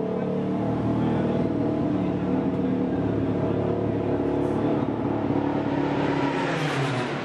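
Racing motorcycle engine running at a steady, fast idle, its pitch dipping slightly near the end.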